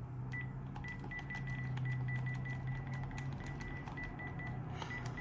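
Keypad of a Panasonic KX-TG9541 DECT cordless handset being pressed to type in a phone book name: each key press gives a click and a short high beep, in a quick, uneven run of about two to three a second, over a steady low hum.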